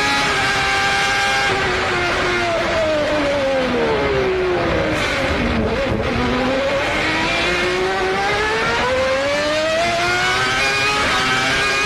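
A 1990s Formula One car's high-revving engine, held at a steady note, then falling smoothly in pitch for about four seconds and climbing back up over the next five as the revs come down and build again.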